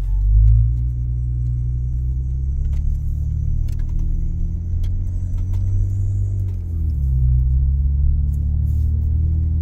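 Jeep Wrangler driving along, its engine and road noise a steady low hum; the engine note drops and then climbs again about two-thirds of the way through, as with a gear change.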